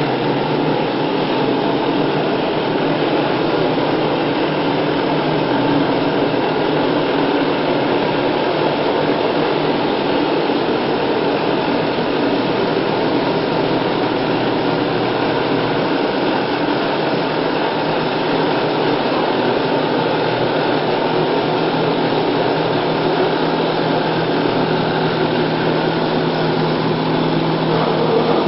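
A small motor-driven machine running steadily and loudly, with an even hum that does not change.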